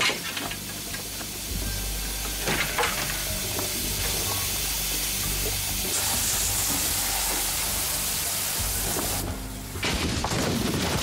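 Steady hiss of brown slurry and gas spraying out under pressure from a burst small metal biogas tank, growing brighter about two-thirds of the way in.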